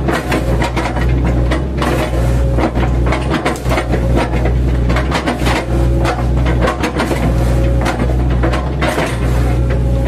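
Mini excavator engine running steadily, with irregular cracking and crunching as its bucket chops into felled oil palm trunks.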